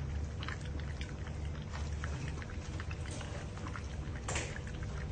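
A puppy lapping from a plastic bowl: quick, irregular wet licks several times a second, with one louder, longer noise about four seconds in. A steady low hum runs underneath.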